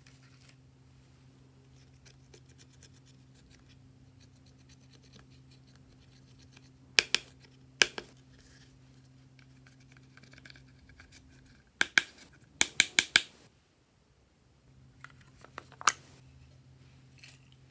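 A plastic spatula scratching powder eyeshadow out of the pans of a palette, faint and scratchy, over a low steady hum. Sharp clicks and taps break in: a few about seven seconds in, a quick run of them about twelve seconds in, and more near the end.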